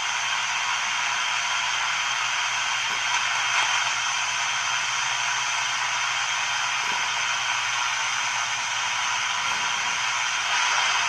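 Hallicrafters S-38 shortwave receiver's speaker giving off steady band static and hiss between transmissions, with a low steady hum underneath.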